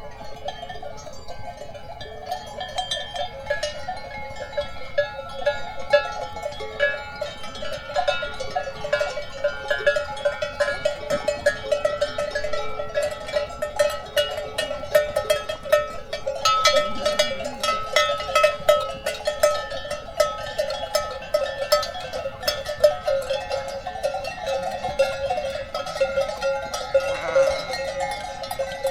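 Bells worn by a flock of sheep and goats clanking continuously as the animals move, a dense jangle of many bells.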